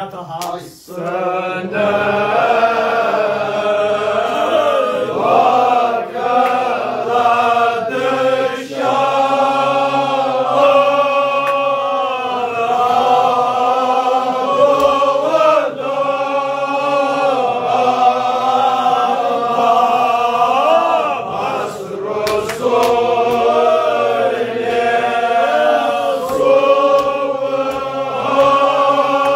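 A group of men chanting a mourning elegy together in unison, in long held phrases with short breaks between them.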